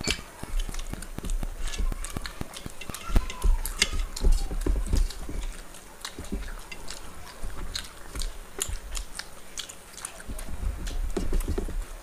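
Two people eating with their hands from steel plates: chewing and mouth sounds, with many small clicks and taps as their fingers pick food off the metal plates.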